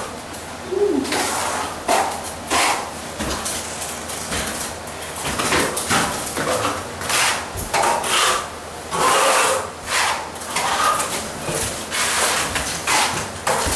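Plastering trowel scraping wet plaster along a ceiling cove in repeated quick strokes, about one a second.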